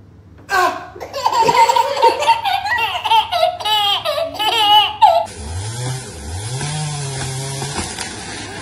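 A baby laughing loudly in repeated trilling bursts for about five seconds. It stops abruptly and gives way to a steady outdoor hiss, with a low sound that rises in pitch twice.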